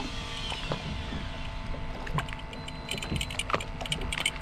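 Small boat rocking at sea: water lapping and slapping against the hull over a steady low rumble, with scattered small knocks.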